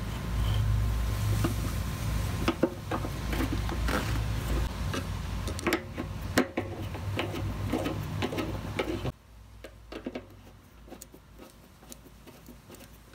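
Small clicks and scrapes of a metal fuel shutoff valve being seated against the tank and its mounting screws turned in with a screwdriver. These come over a low steady rumble that cuts off abruptly about nine seconds in, after which only faint scattered clicks remain.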